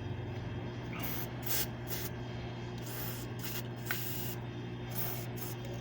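Aerosol belt-dressing spray squirted through a thin nozzle tube in about eight short hissing bursts onto the engine's belt pulleys, a treatment for a noisy drive belt.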